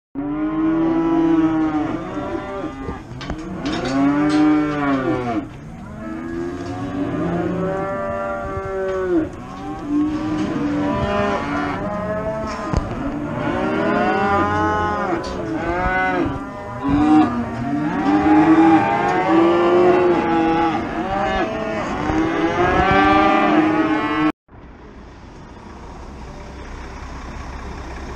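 Many cattle penned at a livestock market mooing and bellowing over one another, call after call, which the caption takes for the sound of fear, distress and confusion. About 24 s in the sound cuts to a quieter, steady low rumble of a lorry engine idling.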